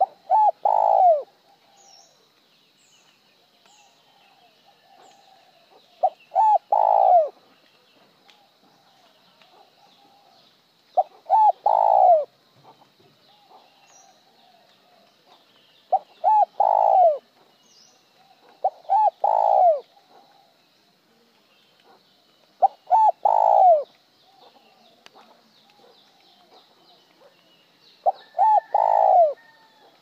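Spotted dove cooing: seven calls, each about a second long, a couple of quick notes running into a single longer trailing note, the 'một hậu' calling coo of Vietnamese dove keepers. The calls repeat every four to six seconds. Faint chirps of small birds sound in between.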